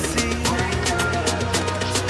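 Background music with a quick, steady beat and a held melody over it.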